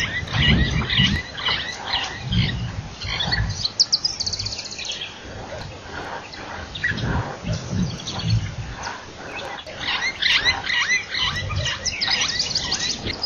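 Rhinoceros at the water's edge with its head down, making low, irregular sounds now and then, with birds chirping in the background, most of all near the end.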